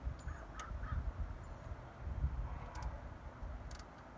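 Wind buffeting the microphone, with a bird giving three short harsh calls in quick succession near the start.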